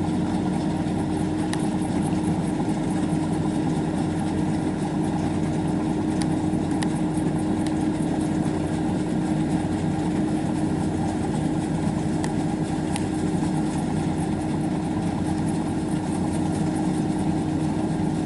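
Kubota rice combine harvester running steadily at a constant engine speed, with a steady drone and a low machinery hum.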